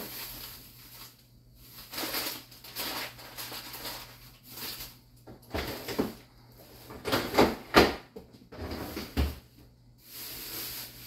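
Rummaging in an open refrigerator: food packages rustling and being shifted on the shelves, with several knocks and clunks, the sharpest about two-thirds of the way through.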